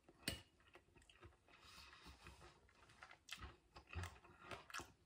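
Faint mouth sounds of someone chewing a mouthful of crispy breaded chicken strip: a few soft, scattered clicks and smacks, mostly in the second half.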